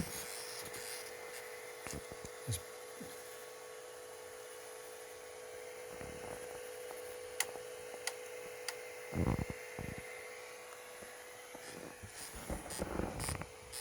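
Tronxy XY2 Pro Titan 3D printer running with a steady hum and fan hiss, broken by a few sharp clicks, a duller thump about nine seconds in and a cluster of knocks near the end. The owner suspects a faulty extruder is behind the knocking.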